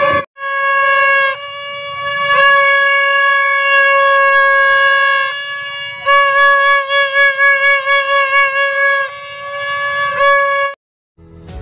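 Plastic toy trumpet blown on one steady, bright note: long held blasts, then about six seconds in a run of quick short toots, about three a second. It stops shortly before the end.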